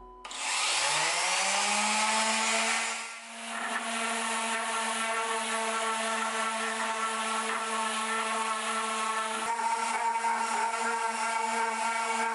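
Random orbital sander switching on and spinning up, its whine rising for about a second to a steady pitch, then running with the hiss of 180-grit paper on a pine board. It dips briefly about three seconds in, then runs on steadily.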